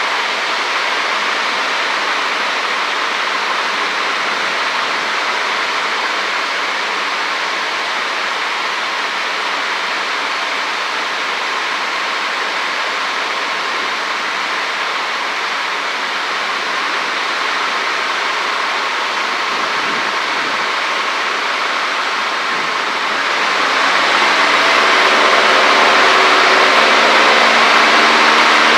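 Cessna 152's four-cylinder Lycoming O-235 engine and airflow, a steady rush at low power on the approach. About 23 s in the engine is opened up to full power and the sound gets louder, with a steady hum of engine tones over the rush.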